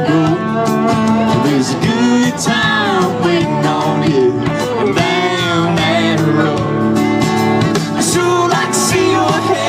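Live country band music with guitars and a bending lead melody over a steady accompaniment.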